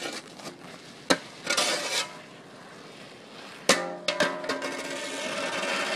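Metal snow shovel scraping across snow and ice on an asphalt driveway, with sharp knocks. About two-thirds of the way in there is a loud clatter as the shovel hits the pavement when the shoveller slips and falls, followed by a lingering ringing tone and scraping.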